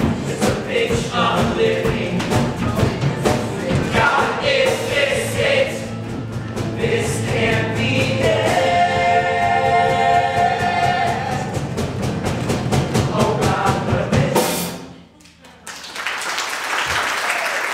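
Male ensemble voices singing a rock-musical number over a live band with a steady drum beat, holding one long chord in the middle before a final hit. The music stops sharply near the end and an audience breaks into applause.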